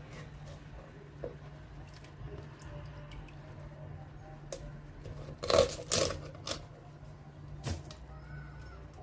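Kitchen knife cutting through small fish and knocking on a wooden cutting board: a few sharp knocks a little past the middle and one more near the end, over a low steady hum.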